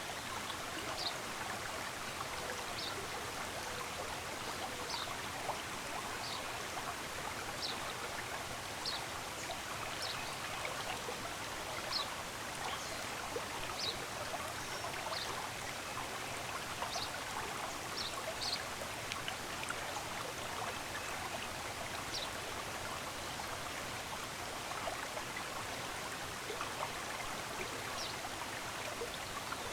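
Stream of running water rushing steadily, with short, high bird chirps about once a second that grow sparser in the second half.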